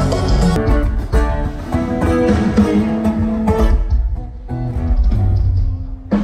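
Band music led by guitar, with bass guitar underneath. It dips briefly about four seconds in and again near the end.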